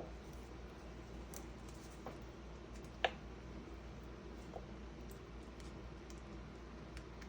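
A spoon scooping seeds out of soft pawpaw fruit, with a few light clicks of spoon and seeds against a bowl, the loudest about three seconds in, over a low steady hum.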